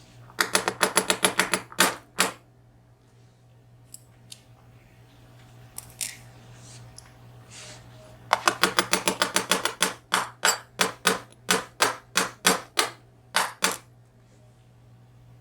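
Rapid runs of small hard clicks and taps from the disassembled VSR dimple lock and its parts being handled. A quick burst comes near the start, then a longer run about eight seconds in that slows to about three clicks a second before stopping.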